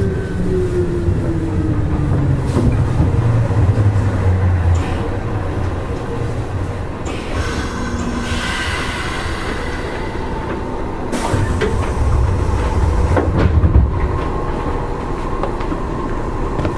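Nishitetsu 5000 series electric train running on the line: steady rumble of the wheels on the rails and the motors, with a motor tone falling in pitch in the first few seconds and a stretch of high hiss or squeal in the middle.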